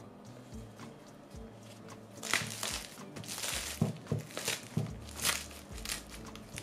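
Dry, crisp baked puff-pastry cake layers crackling and rustling as they are handled and pressed down, in a cluster of crackles from about two seconds in, over quiet background music.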